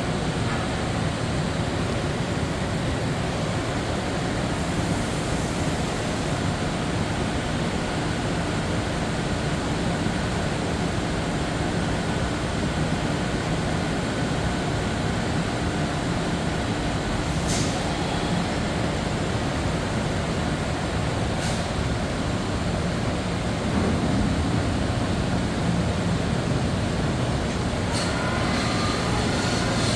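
Yama Seiki VP-2012HD CNC bridge mill running with a steady mechanical noise, broken by three sharp clacks in the second half as its automatic tool changer works.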